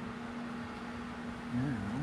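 Steady low mechanical hum throughout. Near the end comes a brief, wavering low murmur of a voice.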